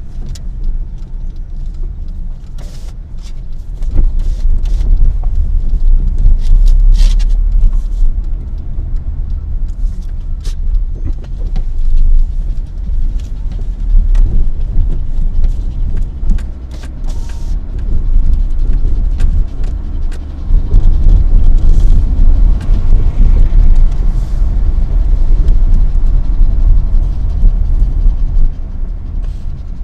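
Car driving in city traffic heard from inside the cabin: a steady low engine and road rumble that grows louder and quieter, with a few short knocks and rattles.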